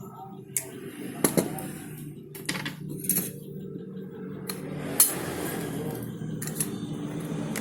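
Irregular light clicks and metallic taps of small tools and parts being handled while a hair clipper is taken apart, over a steady low hum.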